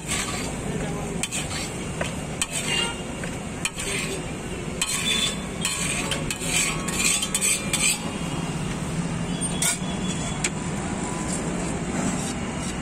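Metal spatula stirring and scraping egg tikhari in a hot pan, with sizzling and a string of sharp metal clicks and taps.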